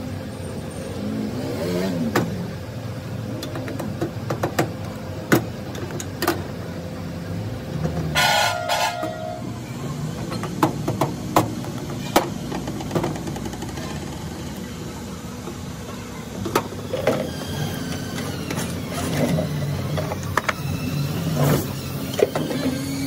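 Street traffic running in the background, with a vehicle horn honking briefly about eight seconds in. Over it, scattered sharp clicks and knocks of battery plates and tools being handled on a workbench.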